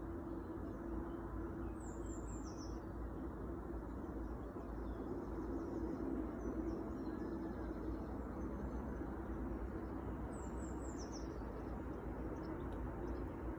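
Small birds chirping in a few short, high-pitched clusters over a steady low outdoor rumble with a faint hum.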